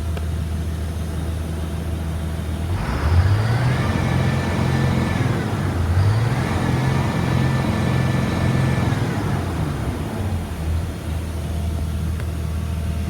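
2004 Blue Bird All American school bus diesel engine, warmed up, idling, then revved twice. Each rev climbs, is held for a couple of seconds and drops back to idle. The engine sounds healthy.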